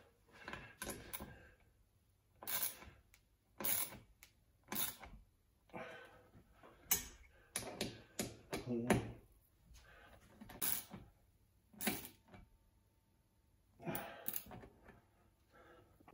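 Hand tools clicking and tapping against the chrome-plated steel frame of a dining chair as its screws are driven by hand, a sharp click about once a second at an uneven pace, with softer scraping between.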